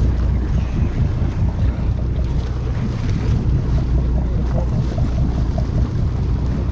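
Steady low drone of the fishing boat's engine running, with wind buffeting the microphone. A short run of faint ticks sounds in the middle.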